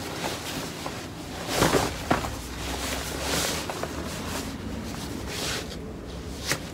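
Neoprene wetsuit being handled on a wooden workbench: the rubber fabric rustles and swishes as it is turned out and smoothed flat, with a few short knocks against the table.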